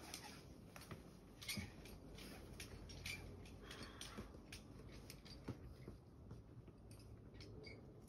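Faint scattered clicks and rustles, with a few sharper light knocks about a second and a half in, near three seconds and again near five and a half seconds: handling noise from the belayer's climbing rope and gear.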